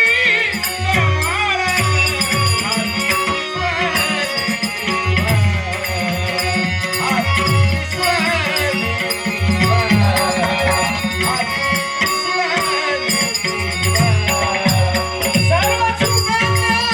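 Dashavatar folk-theatre accompaniment: a hand drum beating a steady rhythm with small cymbals clashing on the beat, under a bending melodic line.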